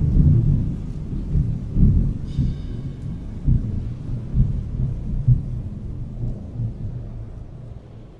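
Thunder sound effect: a low, uneven rumble with irregular heavy booms, dying away toward the end.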